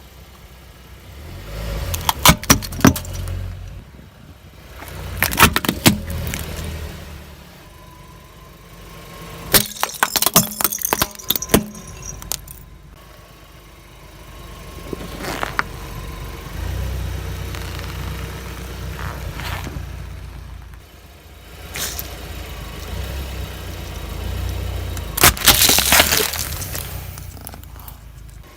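A car's tyres rolling slowly over small objects and crushing them, with a low rumble under four bursts of sharp cracking and crunching: about two seconds in, around five seconds, around ten to twelve seconds, and the loudest near the end.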